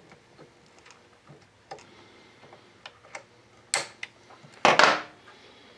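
Side cutters snipping through the coil and ignition-switch wires that run to a chainsaw's points. A few faint handling clicks, then a sharp snip nearly four seconds in and a louder snip about a second later.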